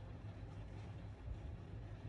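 Steady low rumble with a faint even hiss, with no distinct events.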